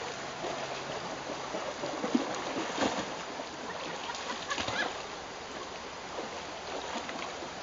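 Shallow creek water running, with a puppy splashing as it wades through it; the splashes come about two to three seconds in and again near five seconds.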